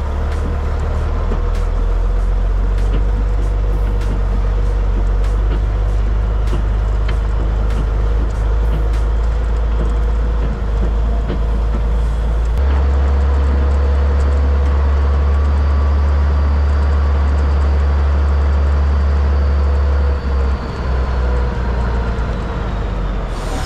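Truck prime mover's diesel engine running as it tows a dolly away, a strong steady low drone that changes note and grows louder about halfway through, dipping briefly near the end.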